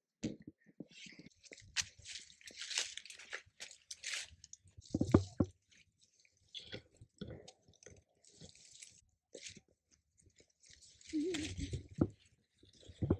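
Leaves, twigs and undergrowth rustling and crunching as they are pushed through and handled, in irregular crackly bursts, with a few dull thumps, the loudest about five seconds in.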